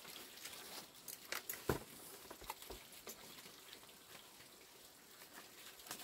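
Quiet footsteps and handling noise on a dirt yard: scattered light taps and clicks, with one louder thump a little under two seconds in.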